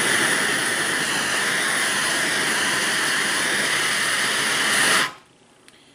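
Handheld MAPP gas torch burning with a steady rushing hiss as it heats the rusted knuckle around a seized bolt, so the metal expands and breaks the rust seal. The hiss cuts off suddenly about five seconds in.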